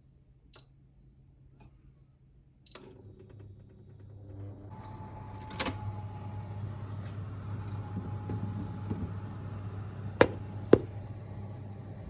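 Two short electronic beeps from an appliance's buttons. After the second, a steady electric hum starts and settles into a low drone with a faint whine. Two sharp clicks come near the end.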